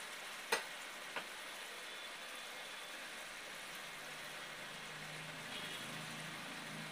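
Tilapia pieces simmering in a thick spiced gravy in a frying pan, a steady bubbling sizzle. Two sharp clicks come about half a second and just over a second in, and a low steady hum joins about five seconds in.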